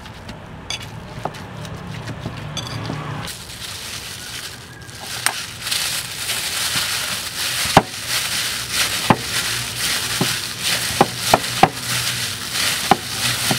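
A spoon scraping and stirring fish paste with bean sprouts in a ceramic bowl, then a plastic bag crinkling and rustling as a bag-covered hand kneads the paste, with sharp knocks against the bowl now and then.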